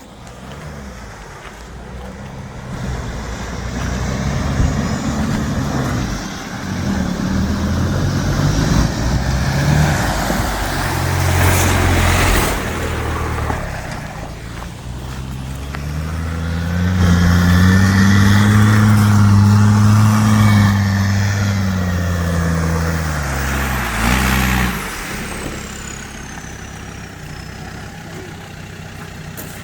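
A 4x4's engine pulling under load off-road, its note rising and falling with the throttle. The loudest stretch, around the middle, climbs in pitch and then eases off. There are short rushing surges of noise before and after it.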